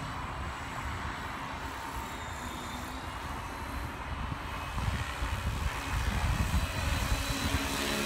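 Align T-Rex 550 electric RC helicopter flying overhead, its motor and rotor giving a faint steady whine over a noisy rush. The sound grows louder over the last few seconds as the helicopter comes closer, with a low rumbling beneath.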